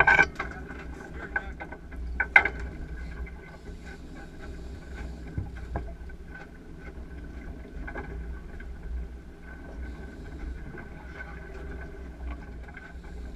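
Steady low rumble of a fishing boat on open water, with a couple of sharp knocks in the first few seconds.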